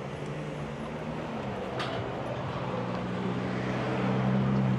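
A motor vehicle's engine running with a low steady hum, growing louder as it draws nearer, with a single sharp click about two seconds in.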